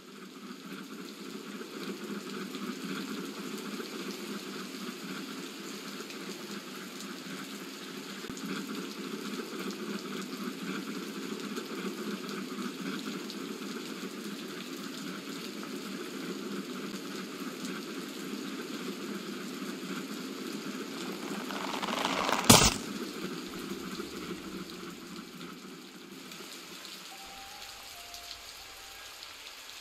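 Steady rain falling, with one sharp, loud crack about three-quarters of the way through, after a brief swell.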